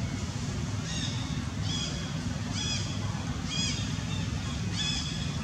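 A series of five short, high-pitched, arching animal calls, about one a second, over a steady low rumble.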